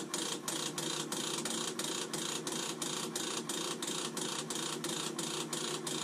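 Navien NCB-240 combi boiler's dual venturi motor running on and on, a steady ratcheting clatter of about four beats a second. This is the loud start-up noise that comes with error code 60, a dual venturi fault, under which the motor keeps operating.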